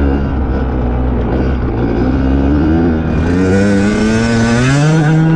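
Off-road dirt bike engine, heard close on the bike, ridden on snow: its pitch wavers, then climbs from about two seconds in and holds high under hard throttle. A hiss joins it from about three seconds in.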